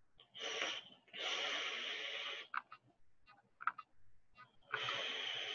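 A person drawing on an e-cigarette and breathing out the vapour. A short breath comes first, then a long airy inhale through the device lasting about a second and a half, a few small mouth clicks, and a long breathy exhale near the end.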